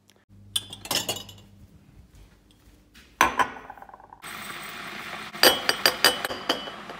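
A glass mason-jar mug clinking and clattering as it is handled, with a sharp clink just after three seconds in. Then a steady pour into the glass, with more clinks over it.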